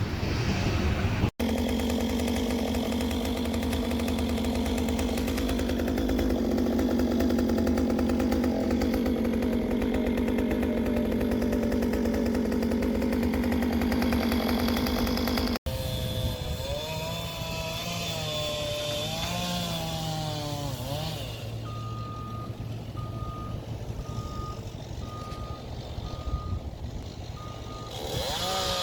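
Tree-work machinery engines: first a steady engine running at a constant speed, then engines revving up and down. Near the end a backup alarm beeps about once a second.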